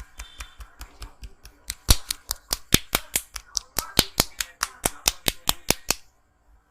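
Rapid, even train of sharp claps from a barber's hands striking the head in a percussive massage, about four or five a second. They get louder about two seconds in and stop abruptly near the end.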